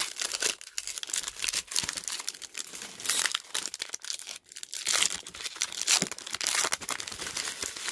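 Foil wrapper of a football trading-card pack being torn open and crinkled by hand: a run of crackling tears and crinkles, louder about three seconds in and again from about five seconds.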